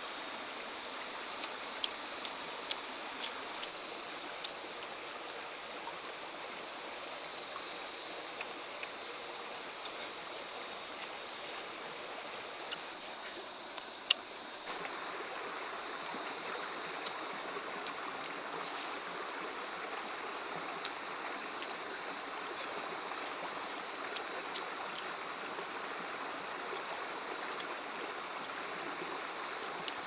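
Steady high-pitched drone of insects over the rushing of a forest stream, with a few faint ticks scattered through it.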